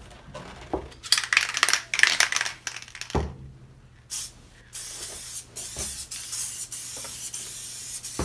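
Vinyl door-panel covering peeled back from its hardboard backing, rustling and crackling in the first seconds; then an aerosol can of Elmer's spray adhesive hissing, a short burst and then a steady spray from about halfway through.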